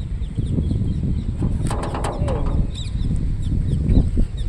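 Wind buffeting the microphone in a low, steady rumble, with a few faint short chirps or squeaks, one falling squeak about two seconds in.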